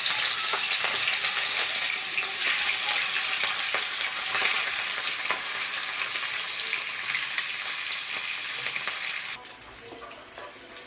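Food frying in hot oil in a pan, a steady loud sizzle with scattered spattering crackles. The sizzle falls off to a quieter level about a second before the end.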